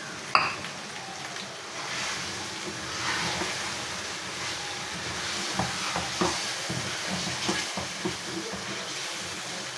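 Chicken and freshly added whipped yogurt sizzling in a metal karahi over a gas flame as a wooden spoon stirs it. There is a sharp knock just after the start and several light knocks of the spoon against the pan about halfway through.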